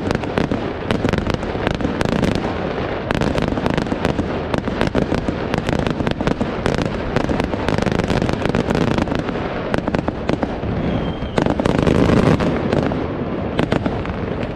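Fireworks display: aerial shells bursting in a fast, continuous run of bangs over a steady rumble, getting louder about eleven seconds in.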